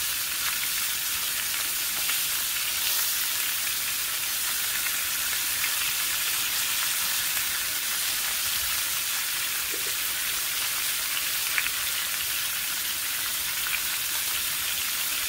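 Beef pot roast searing in hot oil in a skillet: a steady sizzle, with one small click about two-thirds of the way through.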